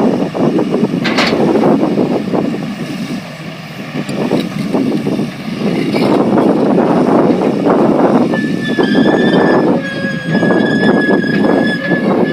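John Deere 690E LC hydraulic excavator running and working, with a loud, rough, rattling machine noise. A steady high whine joins about eight seconds in.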